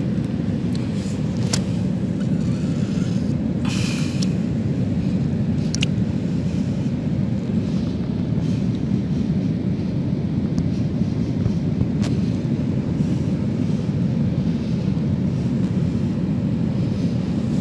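Steady low rumble of wind and surf at the seashore, with a few sharp clicks and a short hiss about four seconds in as a hand works among the rocks of a tide pool.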